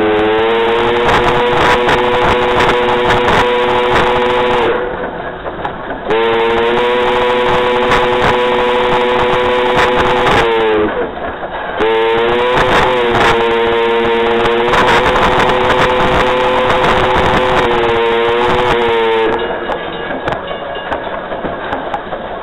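Steam locomotive No. 192's chime whistle blown in three long blasts with short gaps, the pitch sagging briefly a couple of times in the third, as a warning for a road crossing. The train's running noise fills the gaps and carries on after the last blast.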